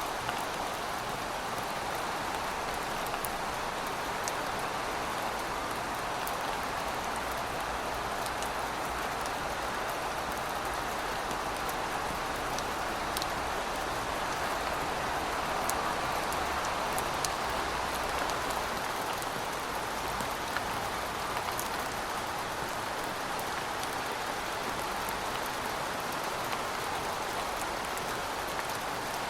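Steady rain falling, an even wash of sound with scattered individual drops ticking sharply on a hard surface.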